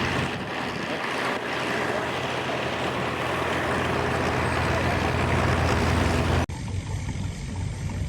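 Fowler steam ploughing engine working, a steady low mechanical running sound under a rushing, noisy wash. The sound changes abruptly about six and a half seconds in.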